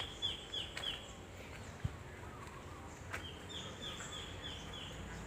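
A bird singing two runs of quick, repeated notes, each note sliding downward: about five notes, a pause, then about six more. Faint outdoor background hiss underneath.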